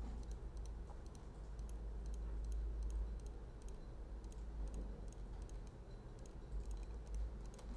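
Computer mouse clicking repeatedly, a quick irregular series of faint clicks, over a steady low hum.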